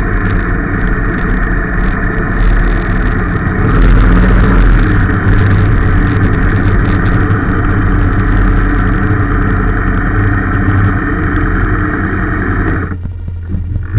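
A vehicle engine running with road noise as the camera travels with it, growing louder about four seconds in, then cutting off sharply near the end.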